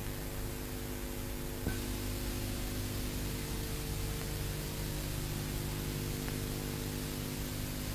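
Steady background hiss with a low, many-toned hum: the bare noise floor of an old recording, with no music or speech. A faint click comes about two seconds in.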